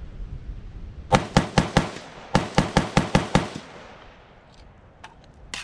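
AR-15-style rifle fired rapidly, ten shots in two quick strings of four and six, the shots about a fifth of a second apart, emptying a 10-round magazine. A lighter sharp click near the end.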